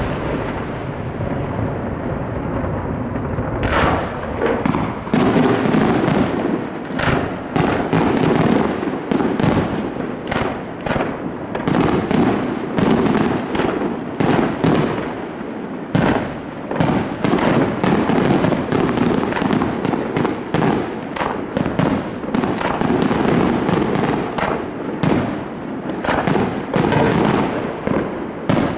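Fireworks display: a dense, continuous barrage of shell bursts and crackling, with the bangs coming several a second and merging into a steady rumble.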